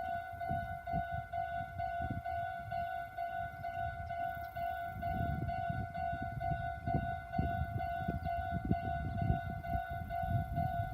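Electronic warning bell of a Japanese third-class level crossing, ringing in an even repeating beat of about two strokes a second, the signal that a train is approaching. An irregular low rumble runs underneath.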